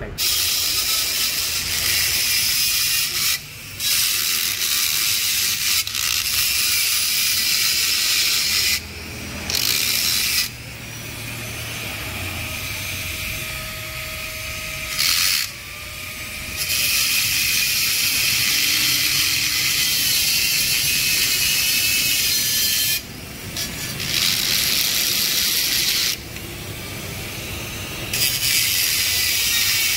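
Tool work on a car door: a steady, high-pitched hissing and grinding mechanical noise that runs in spells of several seconds, broken by a few short pauses.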